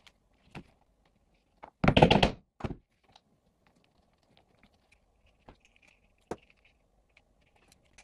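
Hand-stitching and handling of a leather pouch piece: a loud rough scrape lasting about half a second, about two seconds in, then a shorter one, then a few light isolated clicks.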